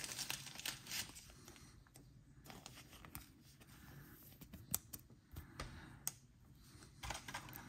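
Faint handling of trading cards: card stock sliding and being set down on a playmat, with scattered light clicks and soft rustling.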